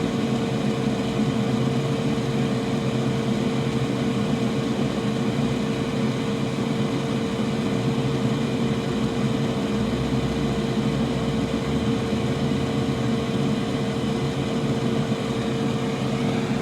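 Steady, loud whir of a small electric blower motor running continuously, with a constant hum.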